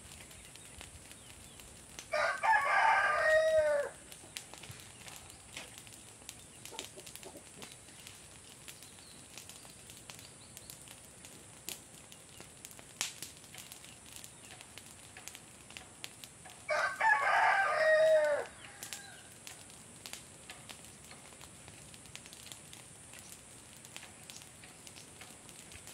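A rooster crows twice: a long call about two seconds in and another about fifteen seconds later, each under two seconds long. Faint scattered clicks lie between the calls.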